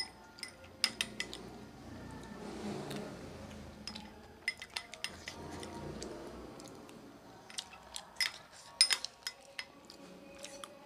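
Steel spoon scraping and clinking against a ceramic bowl while scooping up ghugni, in three bursts of sharp clinks with quieter stretches between.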